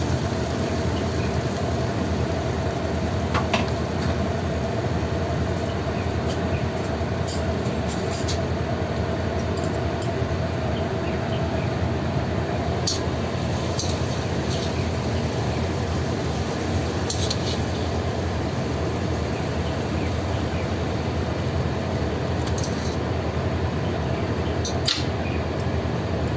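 Stir-fried noodles sizzling steadily in a hot pan as the sauce cooks down, with a spatula clinking against the pan now and then.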